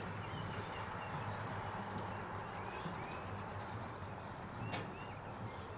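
Steady open-air background noise with a low hum, and faint chirps of small birds scattered throughout. A single sharp click comes near the end.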